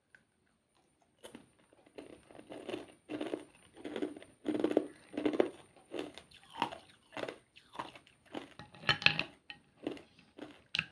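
Ice being bitten and chewed, a run of crunches roughly two a second that starts after about a second of quiet.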